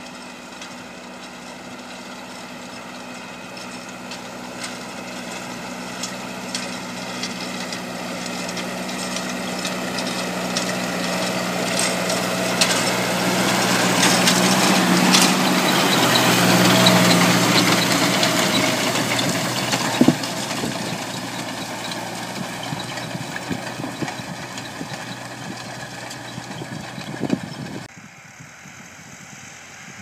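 Massey Ferguson 6470 tractor's diesel engine running steadily while ploughing. It grows louder as the tractor approaches, passes close about halfway through, then fades as it draws away, with scattered clicks and knocks throughout. Near the end the sound cuts abruptly to a quieter, more distant tractor.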